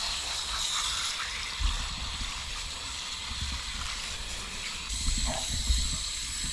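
Garden-hose spray nozzle spraying a steady hiss of water onto a whole palometa on a wooden cutting board, rinsing the slime off the fish. A few low knocks come through under the spray, the strongest near the end.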